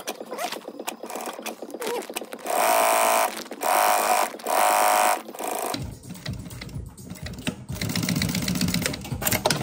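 Industrial sewing machine stitching webbing onto sailcloth in three short runs of about a second each, with light clicks of the fabric being handled before them. About six seconds in the sound changes to a low rumble with rustling.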